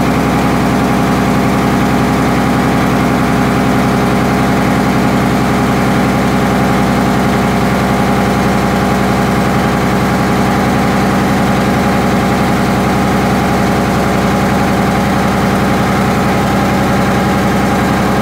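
Diesel engine of a popopo riverboat running steadily under way, a constant even beat with no change in speed, heard from on board the wooden boat.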